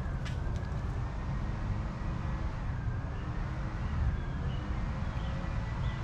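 Outdoor ambience with a steady low rumble of traffic and a faint high tone that slowly dips and rises. There is a sharp click just after the start, and a few short bird chirps in the second half.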